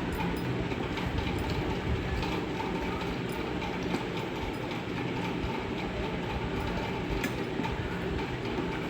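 Steady low rumbling background noise with faint scattered clicks and smacks of someone eating rice and greens by hand.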